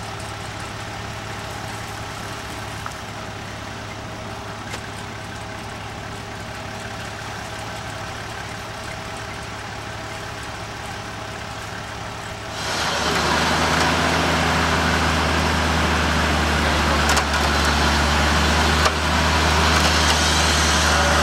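Toyota LandCruiser four-wheel drive's engine idling steadily. About twelve and a half seconds in, the sound suddenly gets louder: a heavier engine hum with a rough, noisy layer over it.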